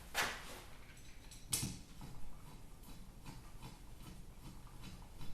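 Faint, even clicking, about two to three ticks a second, as the limit-switch adjuster on an Auxx-Lift storage-lift motor is turned by hand, with two sharper knocks in the first second and a half.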